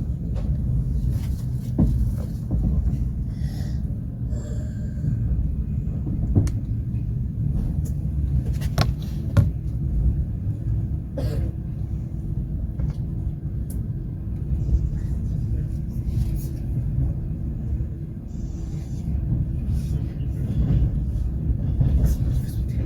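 Passenger train running on the track, heard as a steady low rumble of the moving carriage with scattered clicks and knocks from the wheels and the car. A faint steady hum joins about halfway through.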